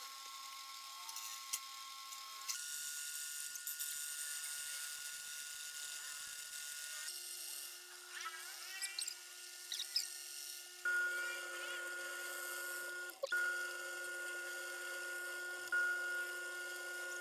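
Homemade lathe turning a steel disc while the cutting tool takes a cut: a steady high whine from the motor and spindle, with the hiss and scrape of metal being cut. The tone jumps to a new pitch abruptly a few times.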